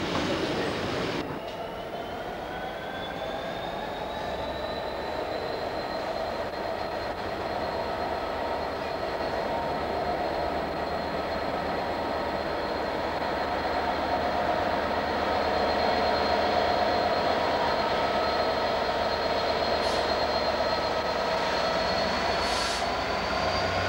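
Passing freight wagons rumble for about a second, then a Class 66 diesel locomotive's two-stroke V12 engine runs with a high whine that rises over the next few seconds, holds steady, and climbs again near the end.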